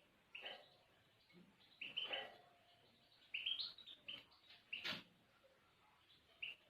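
Small songbird giving short, scattered chirps, with a single sharp click about five seconds in.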